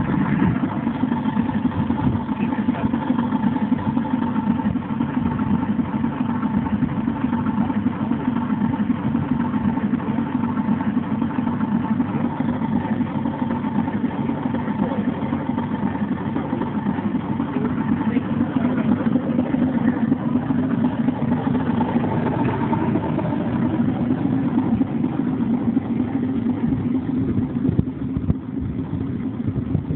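Ride-on miniature-railway locomotive built as a Warship diesel, its engine running steadily as it hauls a passenger carriage past, a little quieter near the end as it draws away.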